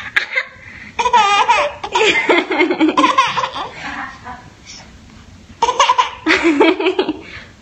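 A baby laughing in a string of high-pitched bursts, pausing about halfway through, then laughing twice more near the end.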